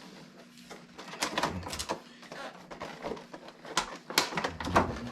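A cardboard box being worked open and its taped flaps pulled loose, with irregular scraping and clicking handling noises.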